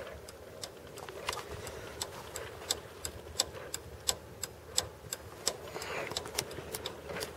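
Footsteps on a paved driveway: a quick, even series of sharp, gritty steps, about three a second.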